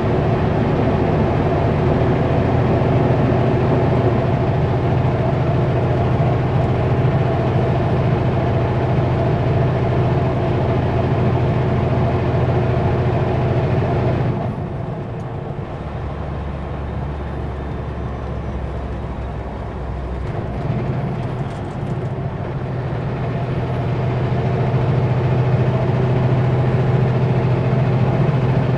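A Kenworth W900L semi-truck's diesel engine running steadily under load, heard from inside the cab. About halfway through the engine note drops off and quietens, then builds back up toward the end.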